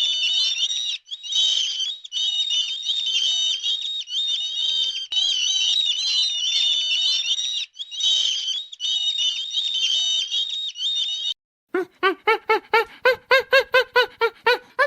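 Many small birds chirping together in a dense, continuous chatter of high calls. After a short break near the end, a different animal gives a quick run of calls, about four or five a second, each rising and falling in pitch.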